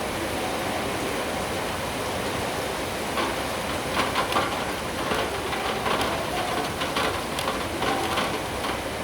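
Steady rain hiss with a low city hum beneath it. From about three seconds in, irregular louder drips and splashes come in on top.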